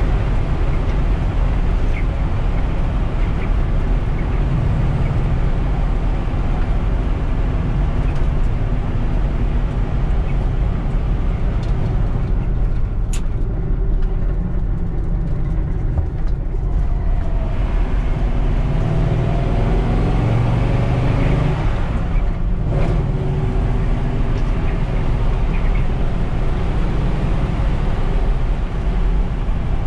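1950 Ford F2 pickup's flathead V8 running under way, heard from inside the cab with road and wind noise. Around the middle the engine note drops away for a gear change on the T5 manual gearbox, then climbs again as the truck pulls in the next gear; there is a second brief lift-off with a click near the three-quarter mark.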